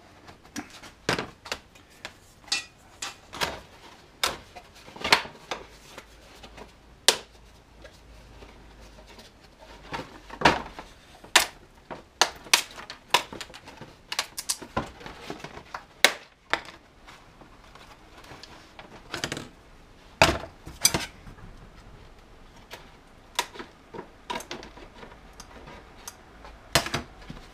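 Irregular sharp clicks, clacks and knocks of hand tools being used and put down on a metal-topped workbench: a steel ruler and craft knife cutting PVC foam board, then tin snips near the end.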